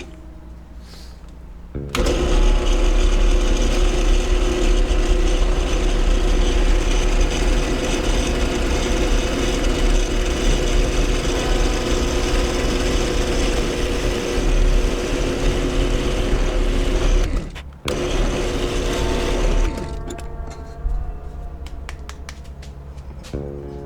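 Electric woodworking power tool running steadily at speed. It starts abruptly about two seconds in, runs for about fifteen seconds, stops for a moment, then runs for a couple more seconds before shutting off.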